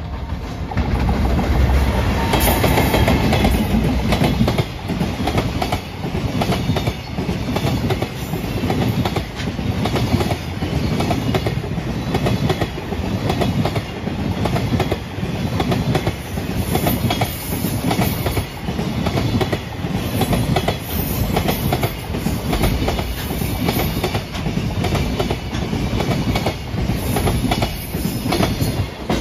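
A JR freight train passing close by: the electric locomotive comes through about a second in, then a long run of container flat wagons follows, wheels clattering over the rail joints in a steady repeating rhythm.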